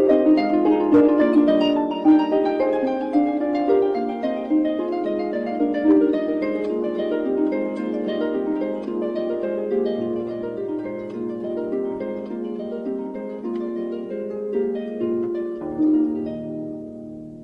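Instrumental music of quick plucked-string notes, harp-like, fading out near the end.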